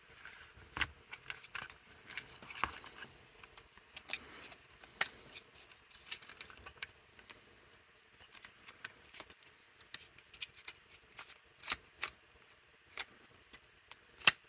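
Faint, irregular small clicks and light scrapes of the plastic clamshell halves of a car door latch housing being handled and worked together, as a nylon piece inside is eased into its slot.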